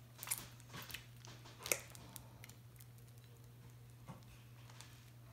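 Faint wet squishes and clicks of sticky homemade glue slime being squeezed and kneaded by hand, a few sharper ones in the first two seconds, then quieter.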